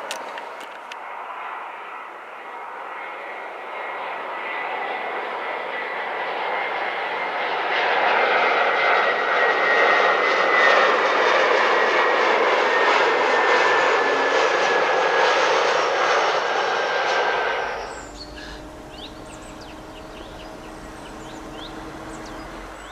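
Airbus A321 jet airliner on landing approach: the engine roar grows louder as it passes close, with a thin whine slowly falling in pitch. The sound cuts off abruptly about 18 s in and gives way to the fainter, steady hum of another approaching airliner.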